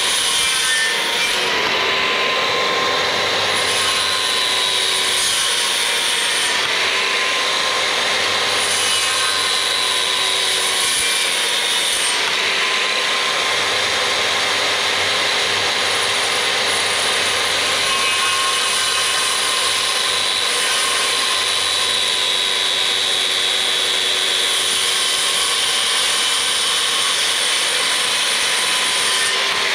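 Circular saw running non-stop while making repeated shallow passes, about half an inch deep, across a framing board to cut a dado. A pretty loud, steady motor whine that dips slightly in pitch now and then as the blade bites into the wood.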